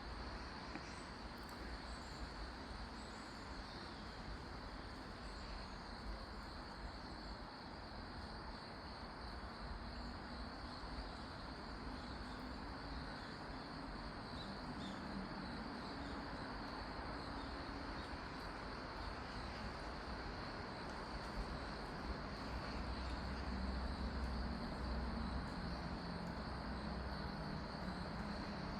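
Insects trilling steadily in a high band over the even rush of a mountain valley stream. A low rumble grows louder in the second half.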